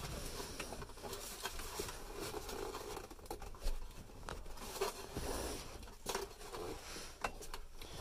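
Faint rustling of hands working a wiring harness behind a truck's dashboard, with a few small plastic clicks, as a new flasher relay is pushed into its socket.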